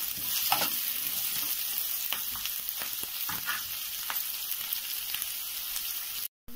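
Sliced onions and dried red chillies sizzling in plenty of oil in a kadai, with a steel ladle now and then scraping and clinking against the pan as they are stirred. The sizzle drops out abruptly for a moment near the end.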